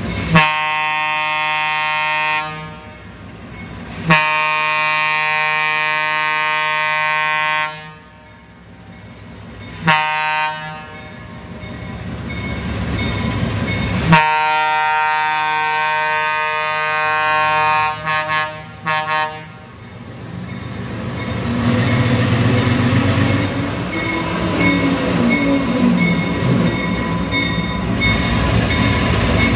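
ALCO RS-3 diesel locomotive's air horn sounding the grade-crossing signal: two long blasts, a short one and a long one, followed by a couple of quick toots. The locomotive's engine and wheels then grow steadily louder as it comes closer, working hard under load.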